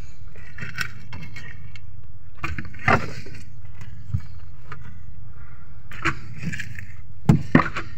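A steady low motor hum runs throughout. A few sharp knocks and rattles come as a bunch of strung-together fish is handled on wooden boards, two of them close together near the end.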